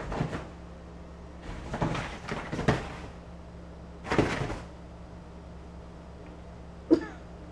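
Rustling and scuffing of movement on a leather couch in three short bursts, then a single sharp click near the end.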